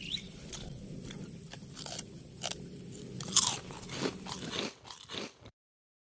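Crunching and chewing of crispy deep-fried street food, with scattered crackly bites and one louder crunch about three and a half seconds in. The sound cuts off abruptly to dead silence about five and a half seconds in.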